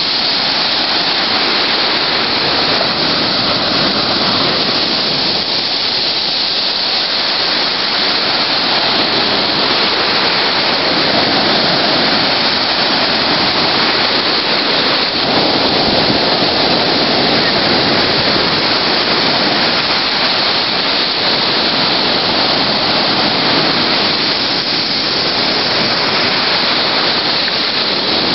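Sea surf breaking and washing up the beach at the shoreline: a loud, continuous rush of churning water that swells and eases a little as the waves come in.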